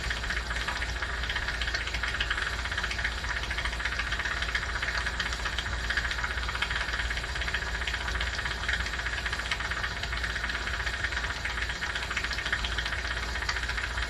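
Jewelry steam cleaner running in the background with a steady hiss, a fast fine crackle and a low hum. The jeweler says it may be failing.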